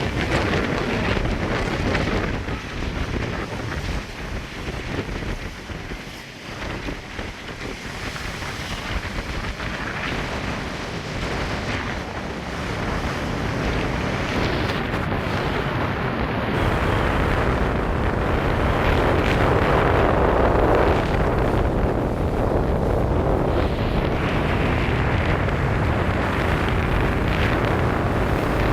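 Strong gusting wind buffeting the microphone, over the sound of ocean surf breaking beneath the pier. The wind eases for a few seconds early on, then builds and stays louder through the second half.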